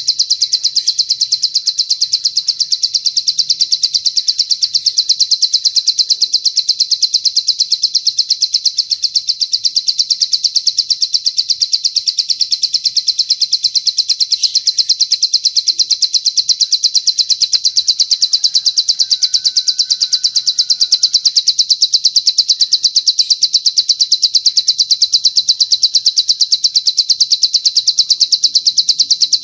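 Songbird's long 'cililin'-style song: a rapid, high-pitched trill of evenly spaced notes that runs on without a break.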